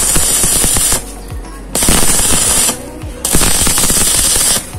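Stick (shielded metal arc) welding on steel: the electrode's arc crackles and sizzles in three bursts of about a second each, with short breaks between them where the arc is stopped and struck again.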